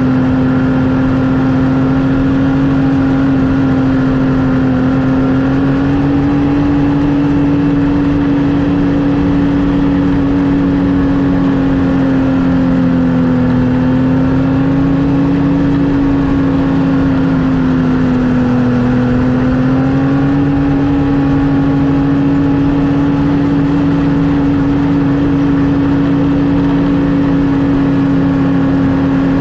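Snowmobile engine running at a steady trail speed. Its pitch dips slightly twice near the middle and comes back up.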